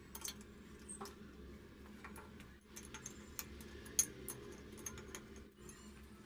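Faint small metal clicks and ticks as the nut of a 10 mm expansion anchor bolt in a tiled wall is tightened, drawing the bolt in so the anchor's sleeve spreads and grips inside the hole. One sharper click about four seconds in.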